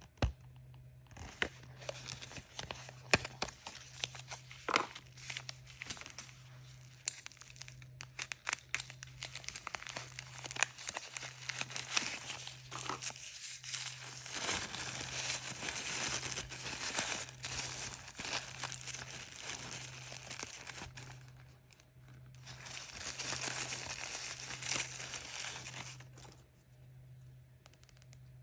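Crinkly packaging being crumpled and torn open by hand to unwrap a surprise toy, with many small sharp crackles. There are longer stretches of steady crinkling about halfway through and again near the end.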